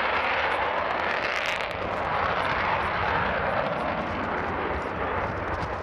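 Steady jet noise from Avro Vulcan XH558's four Rolls-Royce Olympus turbojets as the delta-wing bomber flies overhead.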